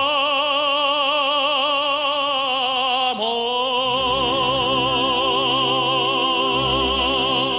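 Operatic singing: a voice holds two long notes with wide vibrato, the second joined by low sustained orchestral accompaniment about four seconds in.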